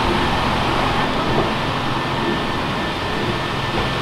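Steady machine noise with a low hum and a faint, even high tone, unchanging throughout.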